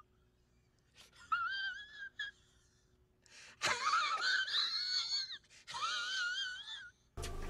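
A high, wavering wail with a quivering vibrato, like exaggerated crying, in about four bouts with short silences between them; the longest comes in the middle.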